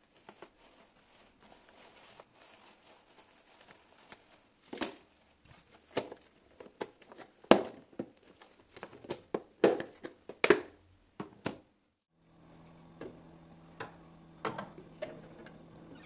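Paper towel rustling over herbs in a clear plastic storage box, then a run of sharp plastic clicks and knocks as the snap-on lid is fitted and pressed down. Near the end a steady low hum with a few light knocks as a jar is set on a glass fridge shelf.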